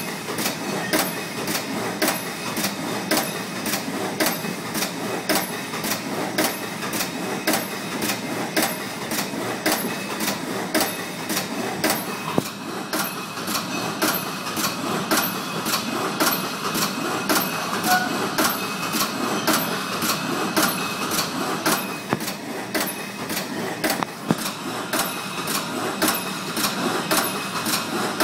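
Glass-bottle printing machine running steadily, printing six colours on 1-litre glass beer bottles. Even mechanical clicks come about twice a second over a steady machine hum.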